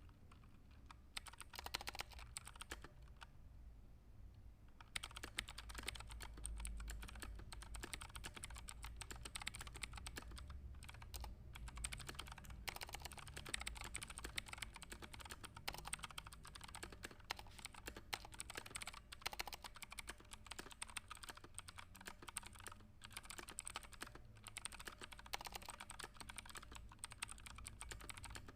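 Fast typing on a computer keyboard: a dense, continuous stream of key clicks, with a short lull a few seconds in, over a low steady hum.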